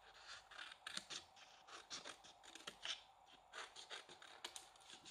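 Scissors cutting cardstock: a series of short, faint snips, about two a second.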